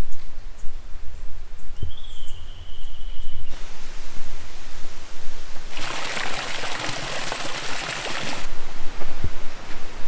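Forest trail ambience in a few cut-together takes: low wind rumble on the microphone with a single whistled note about two seconds in, then a loud steady rushing hiss in the middle that cuts off abruptly, like running water.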